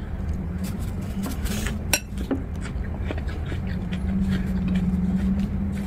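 A few light clinks and clicks of a fork against a dish, the sharpest about two seconds in, over a steady low hum.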